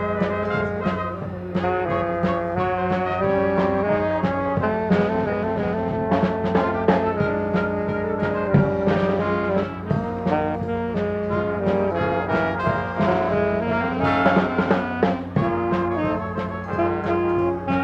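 Brass-led band music, held melodic notes over regular drum strikes, accompanying the aerial act.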